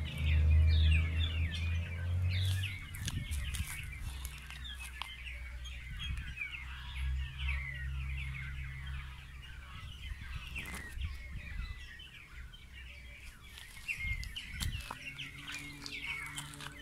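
Many small birds chirping continuously, a dense chorus of short rapid chirps. A low steady hum is the loudest sound at first and stops about two and a half seconds in, and there are a few soft knocks later on.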